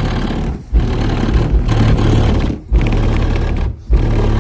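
Loud bass-heavy music through a Skar SDR 12-inch subwoofer driven by a 1200-watt amplifier, with hard bass hits. The sound cuts out briefly three times.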